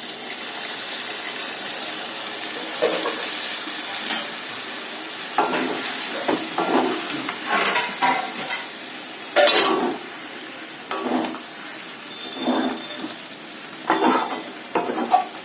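Chicken masala sizzling steadily in a pan just after milk is added, then a spatula (khunti) stirring and scraping against the pan in about eight separate strokes.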